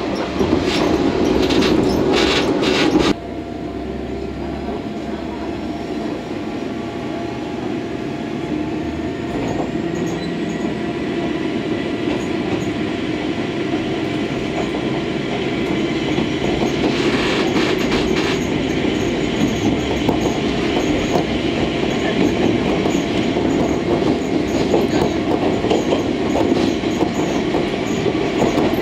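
Running noise inside a KiHa 47 diesel railcar: a loud rumble that drops suddenly about three seconds in, then a steady hum of engine and wheels that slowly grows louder with a faint rising whine. About two-thirds of the way through comes a short run of wheel clacks over rail joints.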